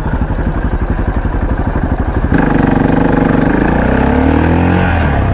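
Motorcycle engine idling with a steady pulse, then about two seconds in it pulls away, its pitch climbing as it accelerates. Near the end the pitch drops at a gear change and starts climbing again.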